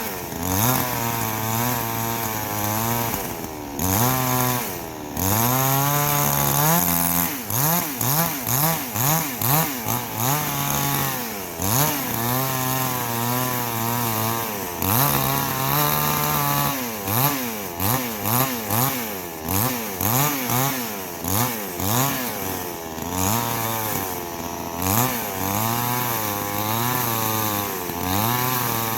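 Two-stroke chainsaw cutting into a log, its engine revving up and down repeatedly as the bar bites and eases off, milling bumps and knots off the round to leave a flat spot.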